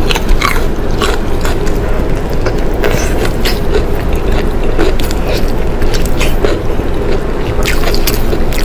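Close-miked chewing and lip-smacking on sticky braised pork tail: wet mouth clicks and smacks over a dense, steady chewing noise.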